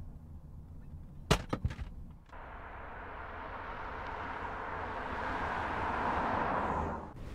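Low road rumble inside a moving car, broken about a second in by a quick cluster of sharp clicks. Then a car approaching on an asphalt road, its tyre and engine noise swelling steadily as it nears before cutting off abruptly near the end.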